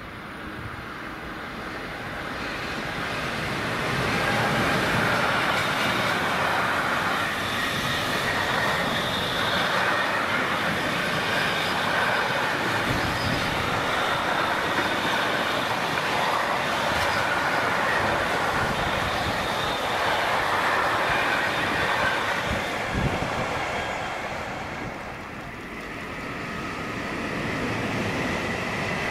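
Electric-hauled container freight train passing close by: the sound swells as the locomotive approaches, then a long steady run of wagon wheels rolling over the rails, with a high ringing squeal from the wheels. Near the end the sound drops, then rises again as a second freight train approaches.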